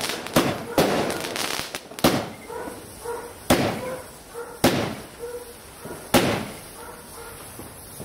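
Fireworks going off in a series of sharp bangs, about six of them roughly one to one and a half seconds apart, each with a short echo.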